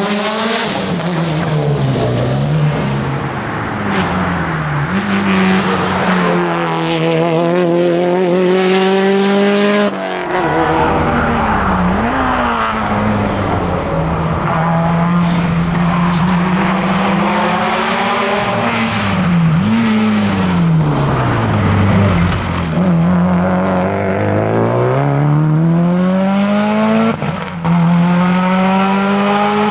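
Subaru WRX STI's turbocharged flat-four engine driven hard at rally pace: revs climb through the gears and drop at each shift, falling away under braking and rising again on the exit, several times over.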